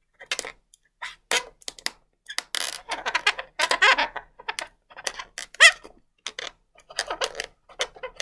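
Latex modelling balloons squeaking and rubbing as fingers grip them and a marker pen draws on the surface: a string of short scratchy rubs broken by brief squeaks, some gliding up in pitch.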